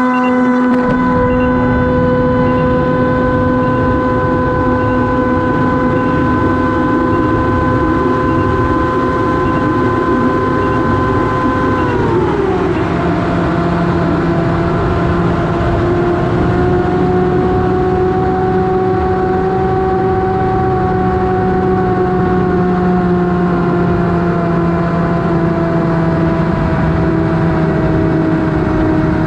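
An electric FPV plane's motor and propeller spin up and whine steadily at full throttle through an INAV autolaunch, over a constant rush of air noise. About twelve seconds in, the pitch drops as the throttle comes back after the launch climb. It then holds at the lower cruise pitch, rising and falling slightly.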